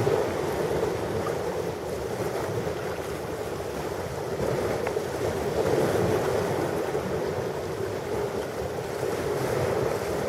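Ocean waves washing onto a shore in a steady rush of surf that swells and eases slowly, with a rumble of wind or water noise underneath.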